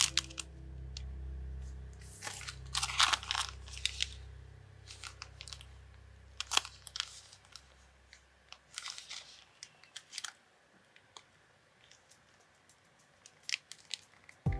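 Clear plastic bags crinkling and crackling as they are handled, in irregular bursts, over soft background music that fades out about two-thirds of the way through.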